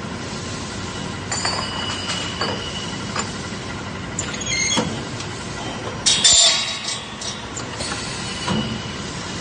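Semi-automatic metal cutting machine running steadily on a factory floor, with scattered metallic clinks and knocks and a short, louder burst of hissing about six seconds in.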